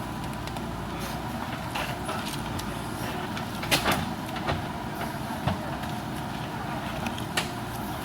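JCB backhoe loader's diesel engine running steadily under work, with a few sharp knocks and clanks. The loudest pair comes about four seconds in.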